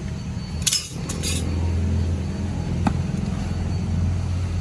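Light metallic clinks, a few in quick succession about a second in and one sharp click near three seconds, over a steady low hum.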